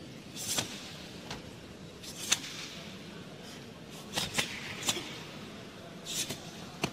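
Karate gi snapping in short, sharp cracks as fast kata strikes and blocks are thrown, about seven times, over a steady faint hall hum.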